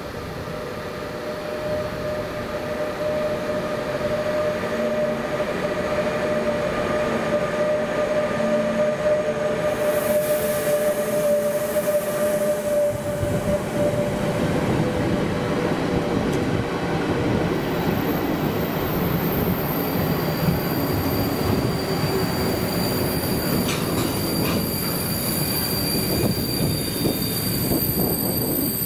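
A freight train of enclosed wagons rolling past close by, a dense rumble of steel wheels on the rails that swells about halfway through. A steady whine sounds in the first half, and high-pitched wheel squeal joins in the second half, with a couple of sharp clicks.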